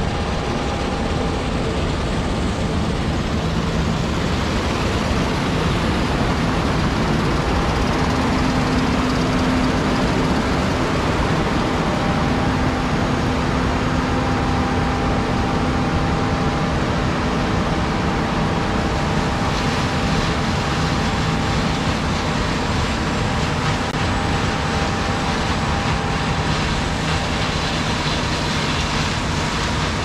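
Steady, loud motor noise with a few faint held tones that drift slightly in pitch, running without a break.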